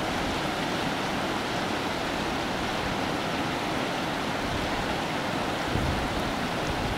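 Shallow mountain stream rushing over rocks and boulders: a steady, full rush of water.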